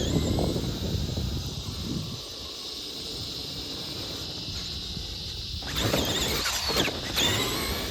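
Traxxas Summit RC truck's stock brushed electric motor and drivetrain whining as it drives through sand, the pitch rising and falling with the throttle. The whine is quieter through the middle and comes back in a louder burst with gliding pitch near the end.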